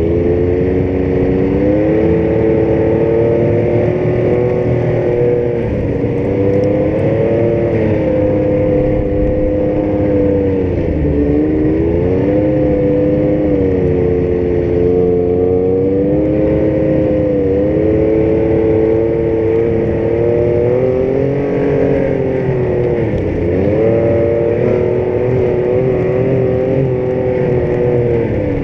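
Yamaha Vector snowmobile's four-stroke engine running at a slow trail pace. Its pitch dips briefly four times as the throttle eases off, then climbs back up each time.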